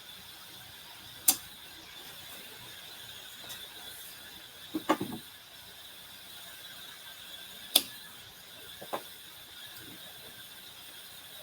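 A few scattered sharp clicks and duller knocks of hand stamping: a stamp being inked on an ink pad and pressed onto paper envelopes. The sharpest click comes near the end.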